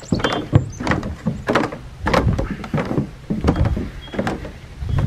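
Irregular knocks and thuds in a small aluminum boat, a few each second, with a low rumble about two seconds in.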